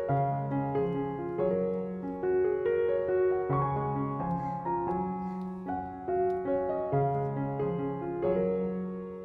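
Background piano music: a melody of held notes, a new note or chord every half second or so.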